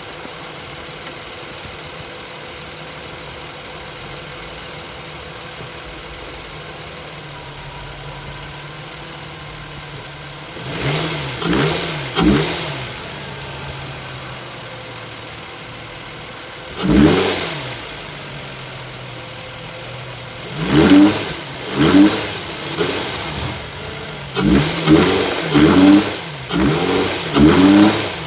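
Infiniti FX35's 3.5-litre VQ V6 engine with a spun bearing, idling steadily for about ten seconds and then revved in short blips. The blips come quicker and closer together near the end.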